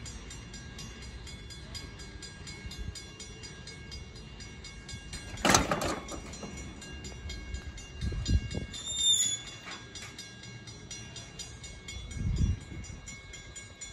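Faint sounds of a narrow-gauge steam locomotive shunting in a station yard. A sudden loud rush of noise comes about five and a half seconds in, and there are low thumps later on.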